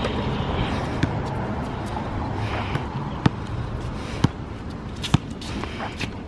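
Basketball bouncing on a hard outdoor court: sharp single thuds, one early and then about once a second in the second half, over a steady background hum.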